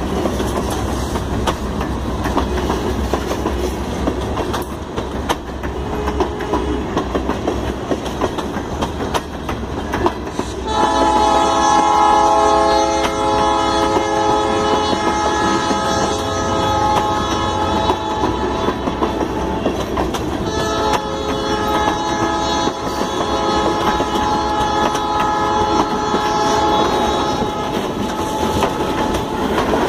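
Tank cars of a freight train rolling past close by, wheels clacking over the rail joints. About a third of the way in, a diesel locomotive horn starts sounding a long, steady chord; it breaks off briefly about two-thirds in, then sounds again.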